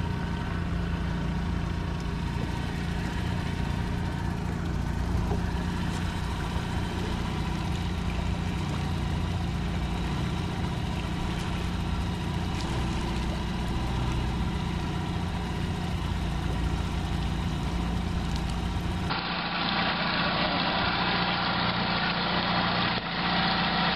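Yamaha outboard motor running steadily at trolling speed. About three-quarters of the way through the sound changes abruptly to a brighter engine noise with less low rumble, and a few clicks come near the end.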